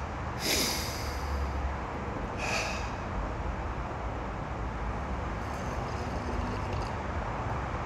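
A person drawing a deep breath about half a second in, then a shorter breath about two and a half seconds in, over a steady low background hum.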